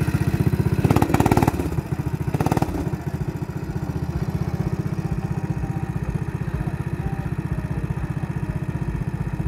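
Go-kart engines running: a steady, even low putter of a small engine close by, with two short louder bursts of noise about a second in and again around two and a half seconds, as a kart pulls away.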